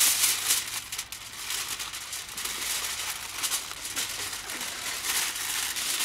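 Aluminium foil crinkling and rustling in irregular bursts as it is pressed and smoothed into a hole in the ground to line it.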